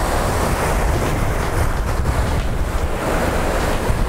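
Surf breaking and washing over the shallows, with wind buffeting the microphone in a steady low rumble.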